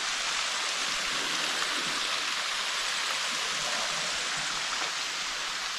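Trentham Falls, a waterfall running with little water, falling into the gorge below: a steady, even hiss of falling water.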